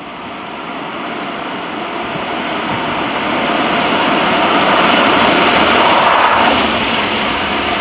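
Air Transat Airbus A330's twin jet engines running with a loud rush as the airliner rolls down the runway. The noise builds steadily as the aircraft nears, and a steady whine comes through near the end.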